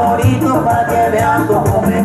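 Loud amplified Latin dance music with a quick, steady percussion beat, a bass line and melodic instrument lines.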